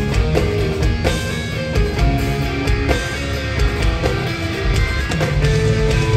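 Instrumental progressive metal played live by a band: electric guitars playing fast note runs over a drum kit.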